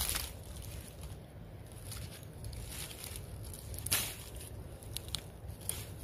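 Faint rustling of dry leaf litter and greenbrier stems being handled, with a few soft crackles, the clearest about four seconds in.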